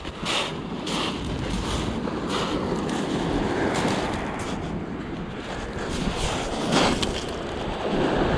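Waves washing onto a shingle beach, with wind buffeting the microphone. A handful of sharp crunches, footsteps on the shingle, come at irregular intervals, and the surf grows louder near the end as the water's edge is reached.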